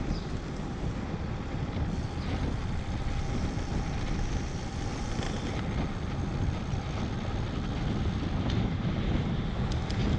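Wind rushing over the camera microphone on a road bike in motion: a steady low rumble with a fainter hiss above it.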